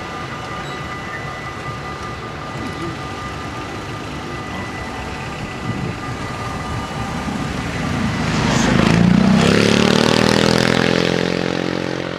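Electronic level-crossing warning bells ringing steadily while the barriers go up, stopping about halfway through. Then a road vehicle pulls away over the crossing and accelerates past close by, its engine note rising; this is the loudest sound.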